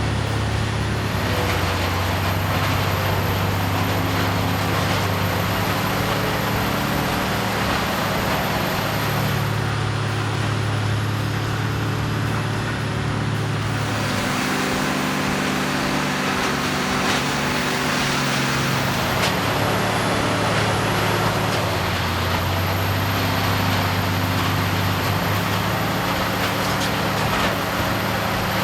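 Heavy machinery engine running steadily under load, its note dropping and rising again a few times, with a thin high whine throughout.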